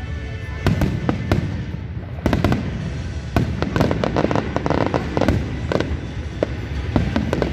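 Aerial fireworks shells bursting in quick succession: repeated sharp bangs, with a dense stretch of crackling about halfway through.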